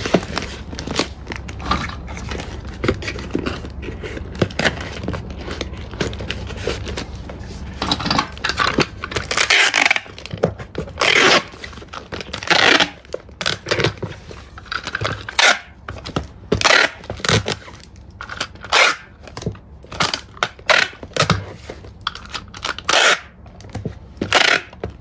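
Cardboard box flaps being folded and handled, then, from about eight seconds in, packing tape pulled off a handheld tape dispenser in a series of short strips and cut off against its blade to seal the box.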